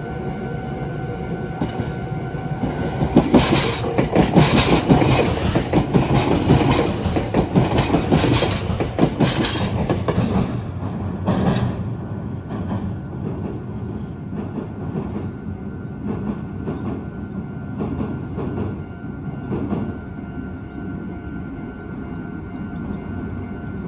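Meitetsu electric train passing over the junction, its wheels clattering over rail joints and points, loudest from about three seconds in and fading away after about twelve seconds, with scattered clicks after that.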